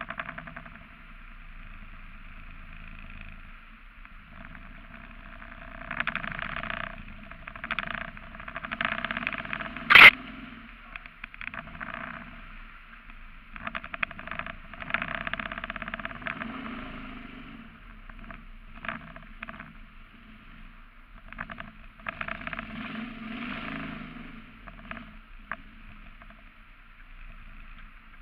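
Mud motor on a duck boat running underway through flooded timber, swelling and easing in loudness several times. A single sharp knock about ten seconds in.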